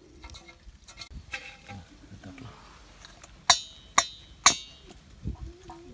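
Three sharp metallic clinks about half a second apart, each ringing briefly: snail shells dropped against a stainless steel bowl.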